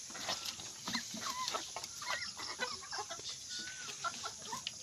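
A flock of chickens clucking and calling in many short, bending chirps as they crowd a feed trough to eat, with scattered sharp clicks.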